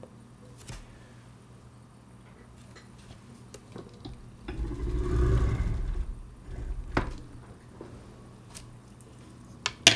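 Handling noise from a watchmaker's staking tool and its small metal punches on the bench. A low shuffling rumble swells around the middle, then comes a single sharp click and a few more clicks near the end.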